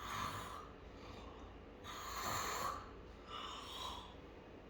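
A man snoring deliberately on request during an ENT examination for snoring: three short, rough snoring breaths about a second apart.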